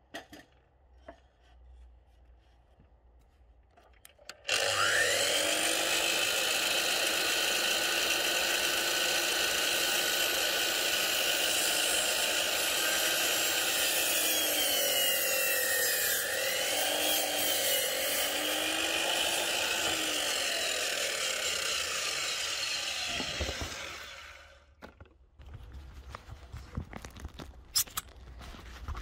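DeWalt DWS780 305 mm sliding mitre saw starting up about four seconds in and running at speed, its pitch dipping in the middle as the blade cuts through a 4x4 treated timber fence post. It then switches off and winds down, followed by a few light knocks.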